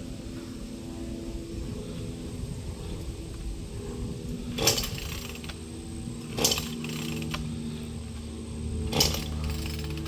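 Gas chainsaw engine running steadily, with three short, loud bursts about two seconds apart.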